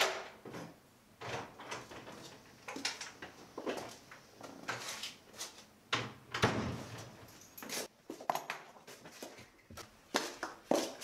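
Irregular knocks, clatters and scuffs in a small room: a glass-paned entrance door being handled and footsteps on a tiled floor.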